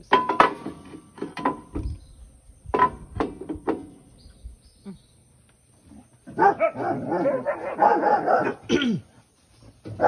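Metal clicks and knocks as the seed metering plate in a planter's cast housing is handled. About six seconds in, an animal vocalizes for roughly three seconds, rising and falling in pitch.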